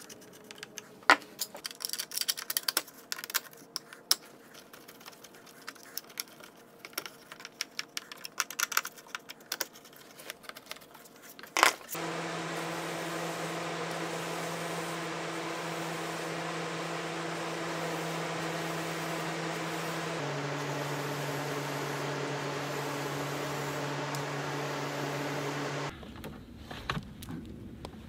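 Scattered small clicks and taps of a screwdriver on battery terminals and a plastic bus bar cover. Then a steady hiss with a constant low hum, from a spray paint can and the fan of a furnace-filter spray booth; the hum drops a little in pitch partway through. A few knocks near the end as a heavy battery is set down on gravel.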